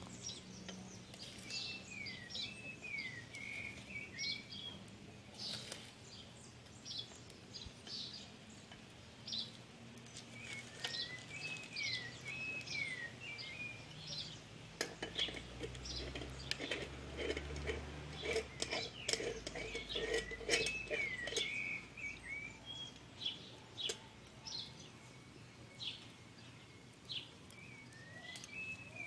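A songbird repeats a short warbling phrase of zigzag notes about four times, several seconds apart. Scattered light clicks and taps sound throughout, with a low rumble in the middle.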